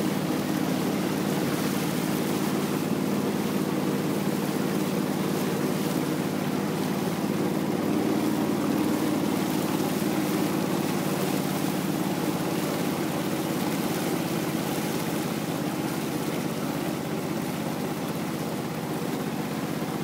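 Engine of a narrow wooden river boat running at a steady speed under way, an even hum with the rush of water and wind over it.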